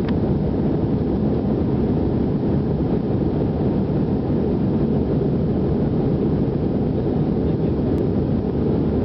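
Steady low roar of an airliner cabin in flight: engine and airflow noise, unchanging throughout.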